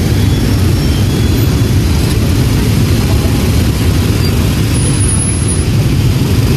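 Many motorbike and scooter engines idling together in a packed queue of traffic: a loud, steady, low rumble.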